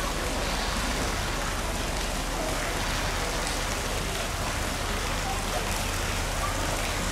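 Steady, even rushing noise, like falling or running water, with faint voices murmuring in the background.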